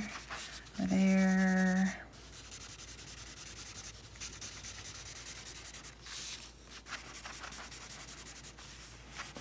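Wax crayon shading on paper in quick back-and-forth crisscross strokes: a steady scratchy rubbing, briefly louder about six seconds in.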